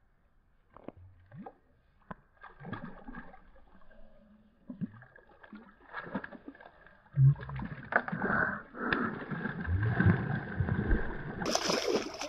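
Shallow water splashing and sloshing as a hooked fish thrashes at the bank and a man reaches in and wades in to grab it by hand. It starts with a few faint knocks and turns loud and continuous from about seven seconds in.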